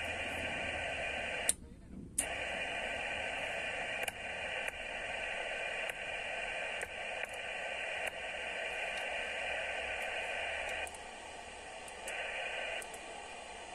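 Kenwood TS-530S HF transceiver receiving an empty band: a steady hiss of receiver noise from its speaker, held within a narrow voice-band range. No stations come through on 20 metres with the poor indoor antenna. The hiss cuts out for a moment about a second and a half in, a few clicks come as the controls are worked, and the hiss drops lower near the end.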